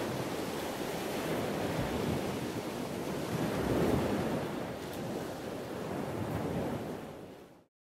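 Sea waves washing on a shore, rising in two slow swells and then fading out to silence near the end.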